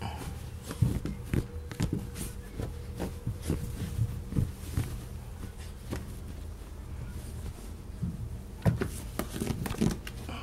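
A wet puppy pawing and digging at a padded fabric dog bed: irregular scuffs and soft thumps, in bursts about a second in, around four seconds in, and again near the end.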